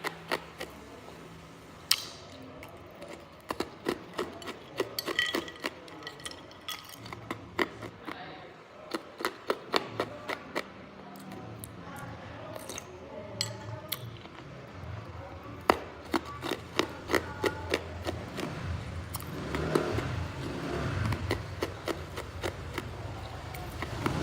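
Hard ice being bitten and chewed close to the microphone: sharp crunches and cracks coming in quick runs, with short gaps between them.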